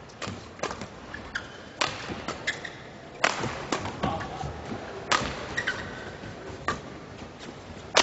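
Badminton rackets striking a shuttlecock in a fast doubles rally: a string of sharp, irregularly spaced hits, with short shoe squeaks on the court floor between them.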